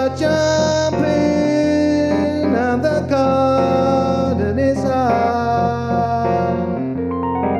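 Chromatic harmonica playing a jazz melody, with long held notes and bent, sliding pitches, over a steady keyboard accompaniment.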